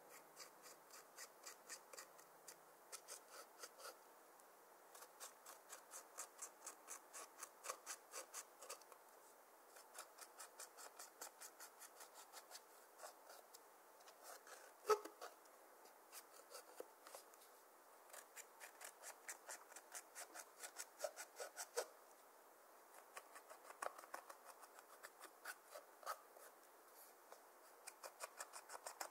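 Pressed eyeshadow being scraped and crushed in its palette pans with a metal-tipped tool: runs of crisp scratching strokes, a few a second, broken by short pauses, with one sharper click about fifteen seconds in.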